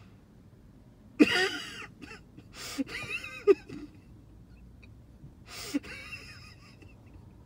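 Stifled, wheezing laughter close to the microphone, in three breathy bursts: the loudest about a second in, another around three seconds, and a shorter one near six seconds.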